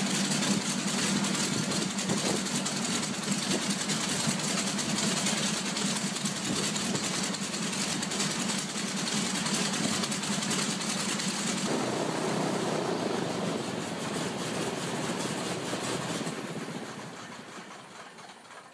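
Radial aircraft engine running on a test stand, a steady rough drone. The sound shifts about two-thirds of the way through, then fades away near the end.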